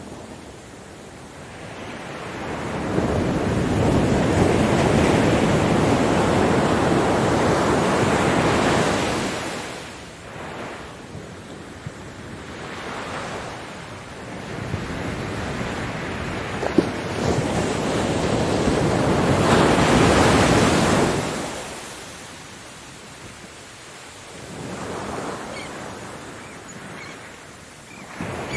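Ocean surf: waves breaking and washing in as long swells of rushing noise. The loudest surges come from about three to nine seconds in and again around twenty seconds, with quieter lulls and smaller swells between.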